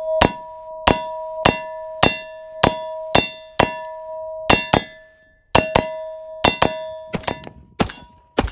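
Rifle rounds striking an AR550 steel plate target in quick succession. Each hit is a sharp clang followed by the plate ringing at a steady pitch. There are about a dozen and a half hits, evenly spaced at first and then in quicker pairs and bursts, with less ringing near the end.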